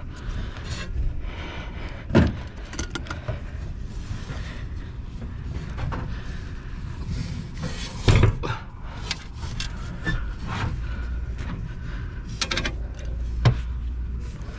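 Scattered metal knocks, clunks and clicks as a replacement 3 hp electric blower motor is handled and fitted into its mount inside a fan coil unit cabinet, the loudest knock about eight seconds in, over a steady low rumble.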